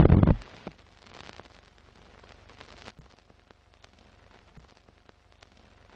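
Old-film countdown leader sound effect: a loud, short low thud right at the start, then faint crackle and irregular pops like worn film running through a projector.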